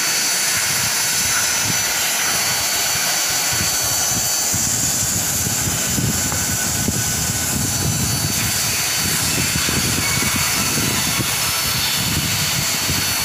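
HEMTEK ST hot-air banner hem welding machine running: a steady blower hiss with a thin high whine, joined by a low uneven rumble from about five seconds in.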